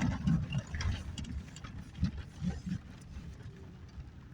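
Low rumble of a vehicle heard from inside as it drives slowly along a dirt drive, with scattered knocks and rattles over the rough ground.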